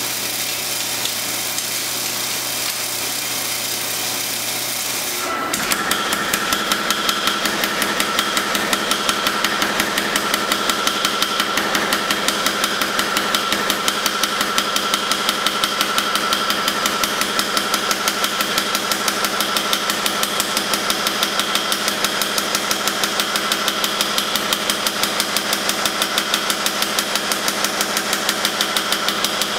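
A power hammer pounding a red-hot steel blade blank in rapid, even blows, which begin about five seconds in after a steady hum.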